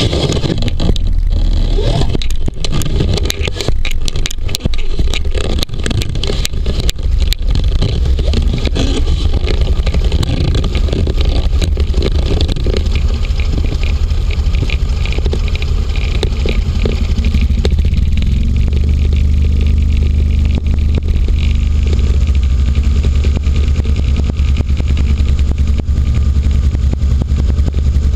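Hovercraft's engine running and spinning its caged pusher propeller as the craft moves off slowly over snow; the low drone grows heavier in the second half as it picks up speed. Many sharp clicks and knocks crackle over the first several seconds.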